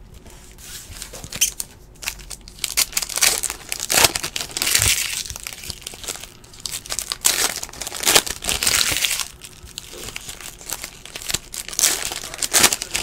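Foil wrappers of 2017-18 Donruss Basketball card packs being torn open and peeled back by hand, in irregular bursts of crinkling.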